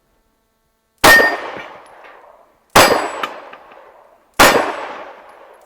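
Three 9 mm Glock 19 pistol shots fired one at a time about 1.7 s apart, each with a ringing tail, and a fourth shot right at the end.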